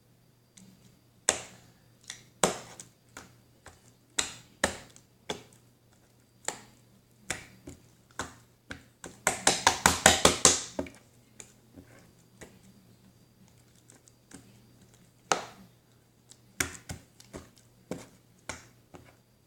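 Slime being squeezed and worked by hand, giving sharp pops and clicks as trapped air bursts, with a quick run of about ten pops around the middle.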